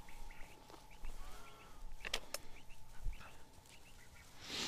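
Faint bird calls, short repeated chirps and a brief gliding note, over the rustle of someone walking through tall dry grass. There are two sharp clicks about two seconds in and a louder brush of grass near the end.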